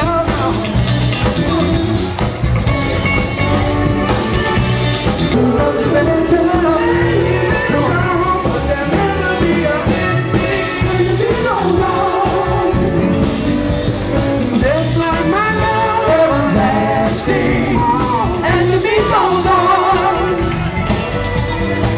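Music with singing: a voice sings over a band with a steady beat.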